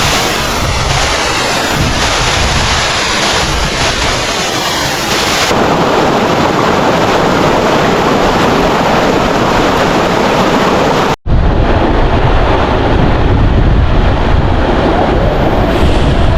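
Waterfall rushing: a loud, steady wash of falling water, with wind buffeting the microphone. The sound changes abruptly about five seconds in and again near eleven seconds, where it cuts out for an instant.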